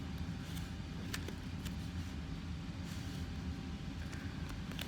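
Steady low background rumble with a few faint taps and rustles of origami paper being handled and glued.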